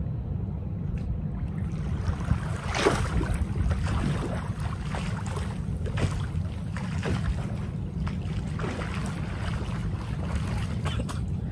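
Water splashing in irregular strokes as a swimmer does the dog paddle, over a steady low rumble of wind on the microphone.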